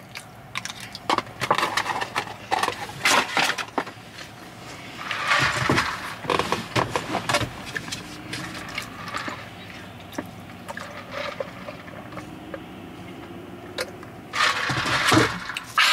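Close-up eating sounds: chewing a mouthful of poutine, with scattered clicks, crinkles and rustles of food containers being handled. Louder rustling about five seconds in and again near the end.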